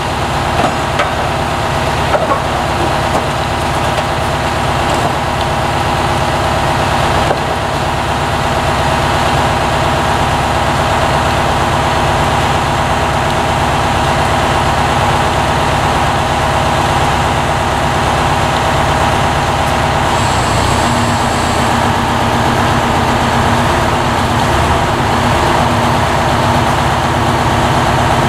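Truck crane's diesel engine running steadily under the operator's control, its note shifting slightly about twenty seconds in.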